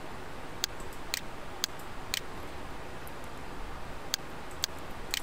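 Sharp ticking clicks, about two a second and very evenly spaced, over faint steady room noise. The clicks pause for about two seconds in the middle.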